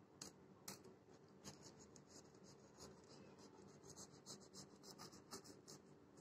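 Faint scratching and small crackling ticks as a knife scores and cuts through the crisp pan-baked dough crust of a parda pulao, with more ticks in quick succession near the end.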